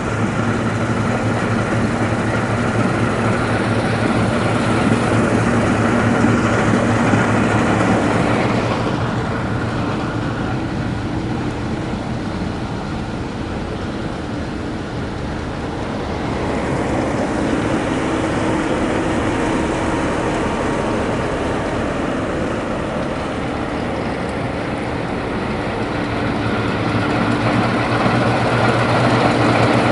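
Claas Lexion 460 combine harvester running steadily while harvesting wheat, a continuous engine hum with mechanical noise, growing louder near the end.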